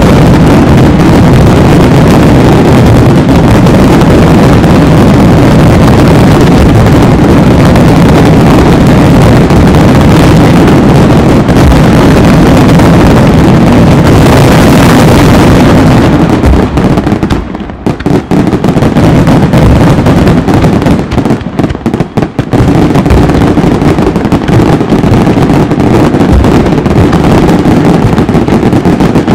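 Fireworks barrage of aerial shells bursting so densely that the explosions run together into one continuous, overloaded rumble. It eases for a moment twice, a little past the middle.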